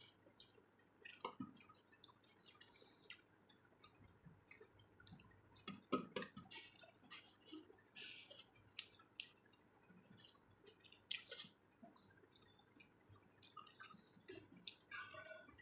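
Quiet close-up eating sounds: chewing and small wet mouth clicks, coming irregularly with short pauses.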